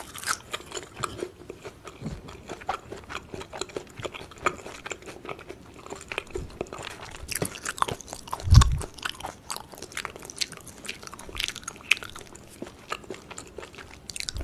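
Close-miked chewing of a mouthful of beef tartare wrap: many small wet crunches and clicks in an irregular stream, with one heavy low thump about eight and a half seconds in.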